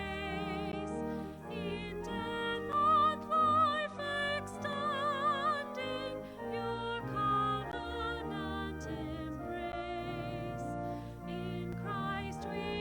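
Classical-style singing with wide vibrato on long held notes, over sustained instrumental accompaniment.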